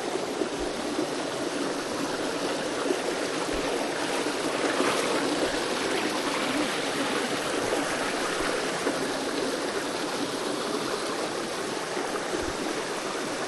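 Valley stream water flowing, a steady rushing and trickling.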